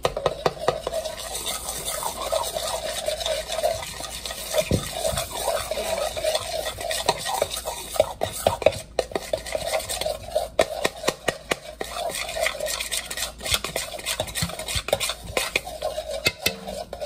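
A spoon stirring and scraping in a plastic mixing bowl, with rapid, irregular clicks of the spoon against its sides, as baking powder is mixed into a homemade slime mixture.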